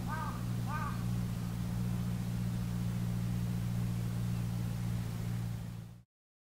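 A crow caws twice at the start over a steady low motor hum. The hum fades out just before the end.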